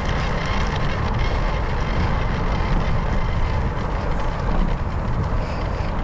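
Steady wind rumble over the microphone and tyre noise from a bicycle being ridden at speed.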